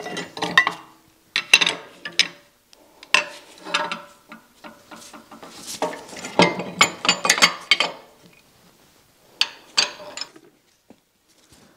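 Metal tools and parts clinking and clanking as they are handled and set down on a milling machine's cast iron knee, in irregular bursts that stop shortly before the end.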